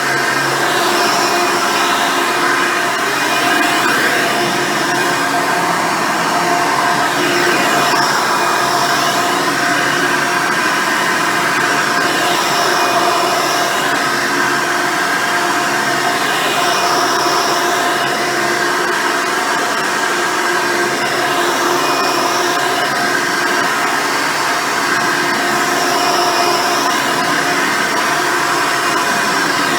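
Hoover Decade Elite Soft & Light upright vacuum cleaner running steadily on carpet with its single-row brush roll: a steady motor whine over a hiss. A higher hiss swells briefly every few seconds.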